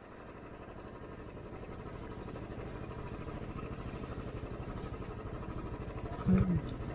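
Motorcycle engine running at low revs with an even, pulsing beat while the bike rolls slowly over a gravel track, fading in gradually. Near the end come two brief louder sounds.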